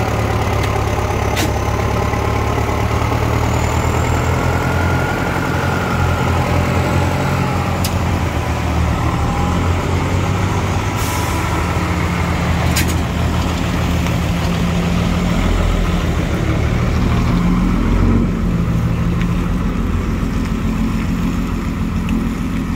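Diesel engines of a tractor and an Isuzu dump truck running under load as the tractor pulls the truck through mud, the engine note rising and getting louder about two-thirds of the way through. A few short sharp clicks and a brief hiss cut in over it.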